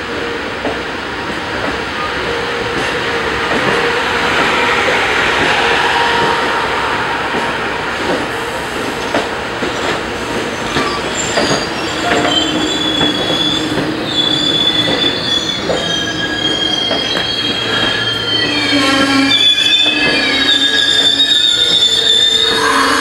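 Amtrak Superliner bilevel passenger cars rolling slowly out of the station, wheels rumbling and clicking over the rail joints. From about halfway through, high-pitched wheel squeal joins in and comes and goes, growing a little louder toward the end.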